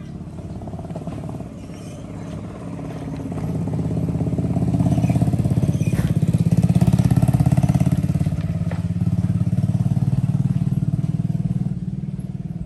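An engine running with a fast, even low pulse. It grows louder from about three seconds in, is loudest around seven seconds, and eases a little near the end.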